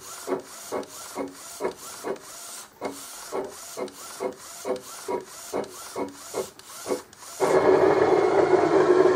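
Print-head carriage of a DIY UV LED flatbed printer built from an Epson R1400, shuttling back and forth in regular whirring strokes a little over twice a second. About seven seconds in the passes stop and a louder, steady motor run takes over.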